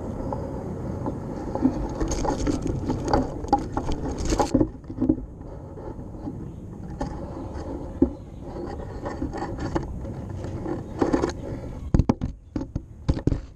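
A GoPro camera on a long bamboo pole knocking and scraping against tree branches, twigs and a stick nest, in irregular clicks and knocks over a steady low rumble, with a quick cluster of knocks near the end.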